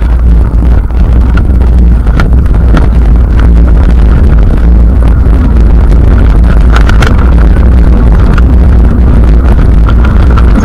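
Heavy wind buffeting on a camera microphone from riding a mountain bike fast down dirt singletrack, a constant loud rumble. Scattered clicks and rattles come from the bike over the rough trail.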